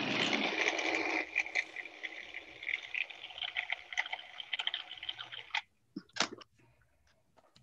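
Food processor running on a thick, wet burger mixture of tempeh, sweet potato, spinach and onion, its blade working at stubborn chunks of potato and onion. It is loudest for about the first second, then quieter with many small clicks and rattles, and stops suddenly about five and a half seconds in. A couple of sharp knocks follow.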